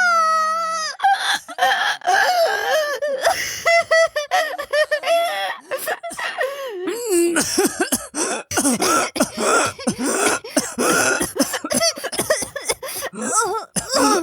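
A voice actor's performed coughing fit: repeated harsh coughs mixed with strained, pitched vocal sounds that come close to laughter, opening with a held high cry about a second long.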